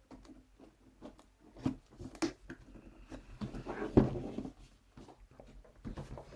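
Scattered light knocks, taps and rustles of cardboard packaging and small plastic parts being handled as the box is packed up, with a sharper knock about four seconds in.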